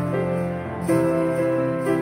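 Background music: a festive, Christmas-style tune with sustained notes and jingle bells shaken about once a second.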